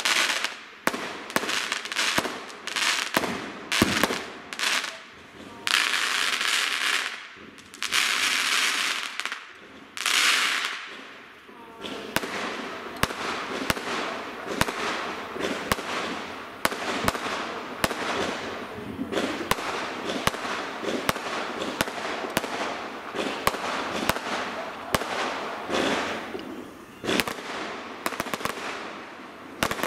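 Aerial firework shells bursting in a rapid series of bangs. Three longer stretches of hissing crackle come between about six and eleven seconds in, and from about halfway the bangs and crackling run together in a dense barrage.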